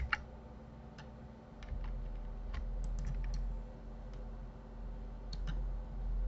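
Scattered clicks of a computer keyboard and mouse while working in 3D software: a dozen or so short, sharp clicks at uneven intervals, over a low steady hum.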